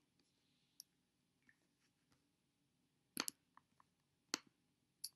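Near silence broken by a few short, sharp computer-mouse clicks: one about a second in, a quick pair past halfway, then two more near the end.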